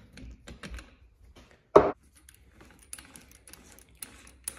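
Ratchet and hex socket unscrewing the seal holding assembly from a Showa 47 mm twin-chamber fork cartridge: a string of light metallic clicks, with one sharper knock just under two seconds in and the clicks coming faster near the end.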